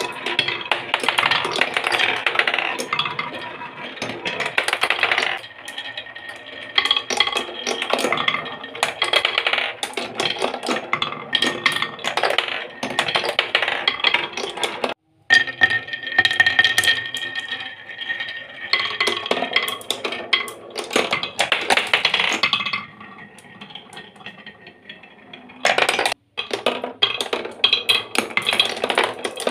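Glass marbles rolling and clattering along a wooden marble run: down a wavy wooden chute, circling a grooved wooden funnel bowl and down a plywood spiral track, a dense stream of small clicks and clacks. The sound cuts out briefly twice.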